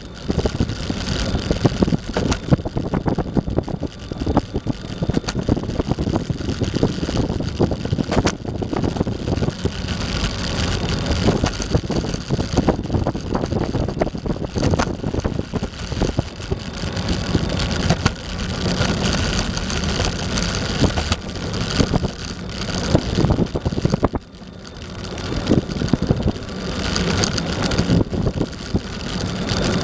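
Eglide electric skateboard rolling on pavement: a continuous rumble of wheels and deck vibration, full of small knocks and bumps, heard from a camera mounted on the board. It drops off briefly about 24 seconds in, then builds back up.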